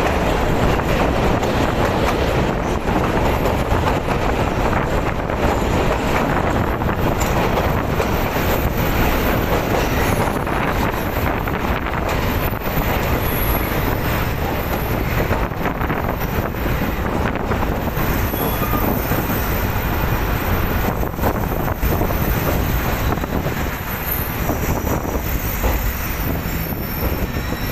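Moving passenger train heard from an open doorway of one of its coaches: a steady, loud running rumble and rattle of the coaches and wheels on the rails, with a few sharp clicks and a faint high wheel squeal now and then.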